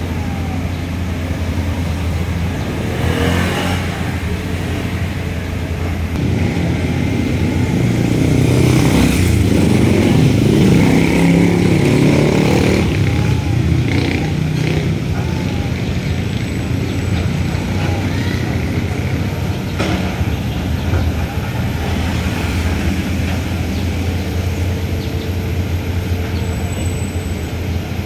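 Street traffic: motorcycle and car engines running and passing, swelling louder for several seconds in the middle.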